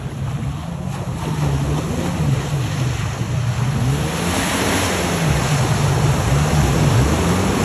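Jet ski engine running, its pitch rising and falling as the throttle is worked, and growing louder as it comes closer. From about four seconds in, the rush of breaking surf and spray grows over it.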